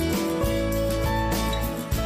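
Background music: a guitar-led tune with a steady beat.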